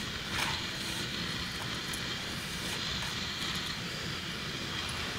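Fingers swirling dry rice flour and semolina across a steel plate, a soft scraping with a couple of faint strokes, over a steady hiss.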